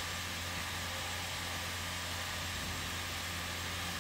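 Steady workshop background noise: a constant low hum under an even hiss, with no distinct knocks or events.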